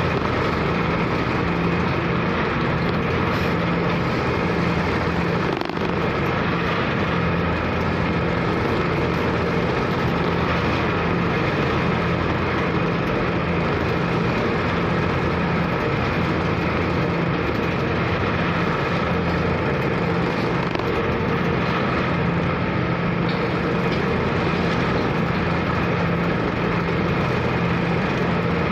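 Steady drone of the KMP Sumut 2 car ferry's diesel engine, an unchanging hum with a constant hiss of wind and water over it.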